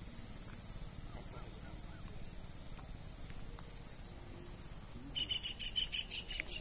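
Steady, high-pitched drone of crickets or other insects at a waterside at dusk, with a few faint bird calls. Near the end a short burst of rapid ticks comes in.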